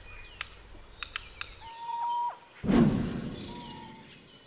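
Wild birds calling: short sharp chirps and a held whistled note that drops sharply at its end. About two and a half seconds in, a loud harsh rasping sound breaks in suddenly and fades over a second or so.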